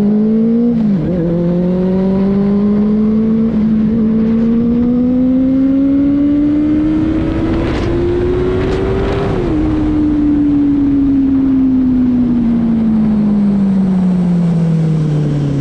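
Benelli 600i's inline-four engine under way: it revs up, drops sharply in pitch about a second in as it shifts up, then pulls steadily higher for about eight seconds. It shifts up again and the revs fall slowly as the throttle is rolled off.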